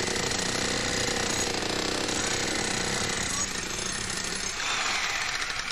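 Powered jackhammer-type track tool, such as one used to pack ballast under sleepers, running with a rapid, continuous hammering.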